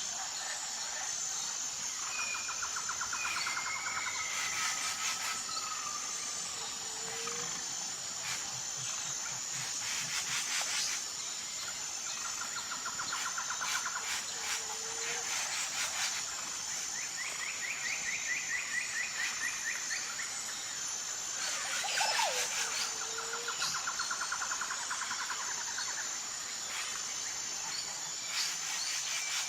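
Crickets chirring in a steady, high, pulsing chorus, with birds calling over it now and then: fast trills that come and go every few seconds, and a short low note repeated about every seven seconds.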